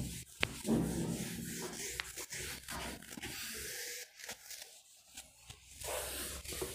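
Soft rubbing and scraping handling noise with a few light clicks, dying down a few seconds in and picking up again near the end.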